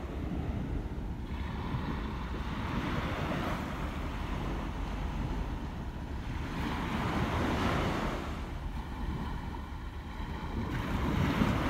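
Sea surf washing against rocks, with wind buffeting the microphone; the surge swells louder about seven seconds in and again near the end.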